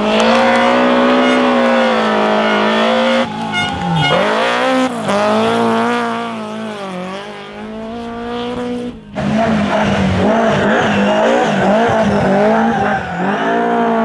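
BMW E30 M3 rally cars' four-cylinder engines revving hard through corners, the pitch dipping on lifts and gear changes and climbing again, several cars in turn. Tyres squeal at times.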